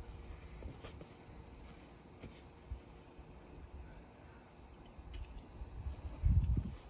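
Crickets chirring faintly and steadily, with low handling noise and a dull low thump about six seconds in.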